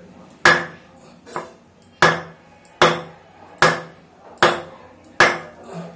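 A knife blade being driven through turtle shell by blows from a heavy pounder on its back: eight sharp knocks with a short ring, about one every 0.8 s, the second and last lighter.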